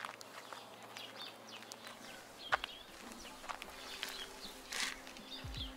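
Small birds chirping and twittering in short calls, with scattered clicks and one sharp tap about two and a half seconds in.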